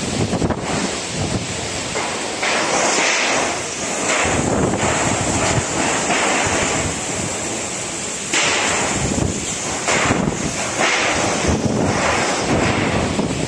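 Violent windstorm with heavy rain: a loud, constant rush of wind and rain, swelling and easing in gusts, with wind buffeting the microphone.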